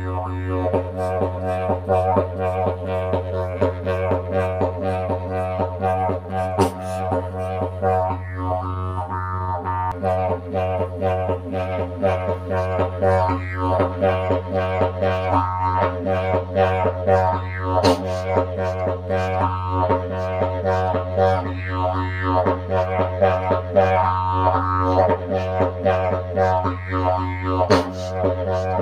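Didgeridoo played with an unbroken low drone, the overtones above it wobbling quickly as the mouth shapes the sound. The loudness pulses rhythmically throughout.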